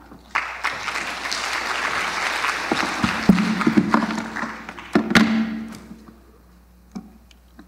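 Audience applauding, starting just after the start and dying away about six seconds in, with a couple of louder knocks partway through.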